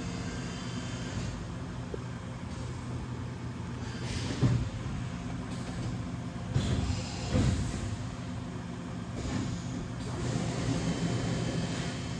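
DVF 5000 five-axis CNC mill running through a machining cycle: a steady low hum with a hiss over it, and a few brief louder swells about halfway through.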